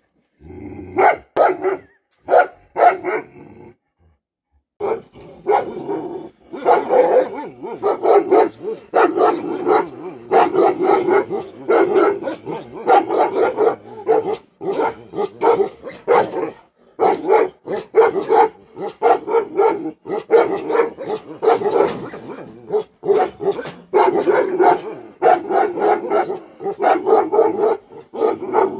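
Bhotia dog barking angrily: a few separate barks, a short pause, then barking almost without a break from about five seconds in.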